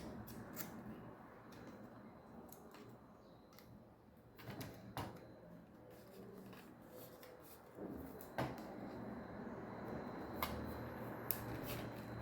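Scattered small clicks and knocks of a ring light stand's parts being handled and fitted together, a few sharper knocks about halfway through and near the end.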